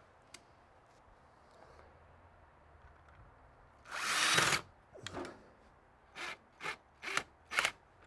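Cordless drill-driver driving a screw into a metal door striker plate. One longer run comes about four seconds in, then five short trigger bursts follow over the last three seconds.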